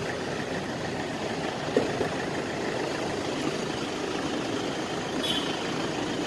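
Steady engine and traffic hum, like a vehicle idling, with two light clicks about two seconds in as the Toyota HiAce's sliding side door is unlatched and pulled open.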